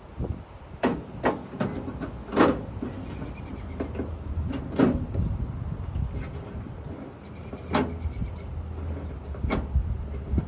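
Scattered metal knocks and clanks, about seven in all, from work on a pickup tailgate's lock mechanism as the lock piece is bent, over a low steady hum.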